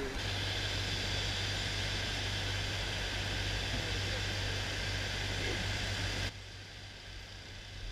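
A steady low hum under an even hiss, which drops away suddenly about six seconds in.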